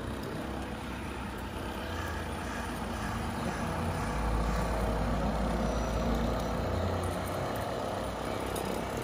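Radio-controlled scale model vehicle running, heard as a steady low rumble with mechanical noise that is heaviest about four to seven seconds in.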